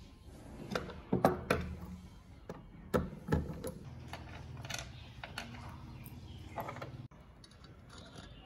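Sharp clicks and clinks of small metal lamp parts being handled and fitted by hand: a cluster about a second in and another about three seconds in, over a low hum that stops abruptly near the end.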